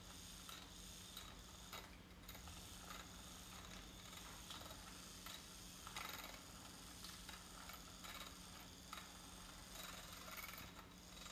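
Handheld battery milk frother whisking matcha in a glass mug, faint: a steady low motor hum with scattered light ticks.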